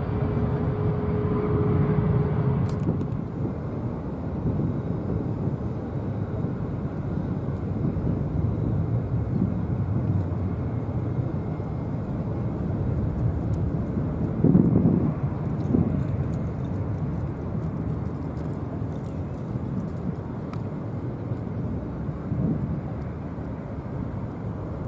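Low, steady rumble of a Boeing 777-200ER's jet engines on final approach, with a steady hum over it for the first few seconds. There are two brief louder bumps about halfway through.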